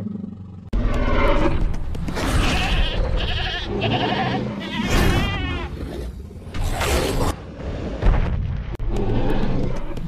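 Goat bleating repeatedly in wavering calls, over deep booming thuds.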